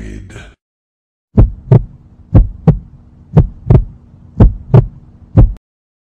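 Heartbeat sound effect: low lub-dub thumps in close pairs, about one pair a second, nine beats in all. In the first half second the tail of a falling, many-toned sound fades out just before it.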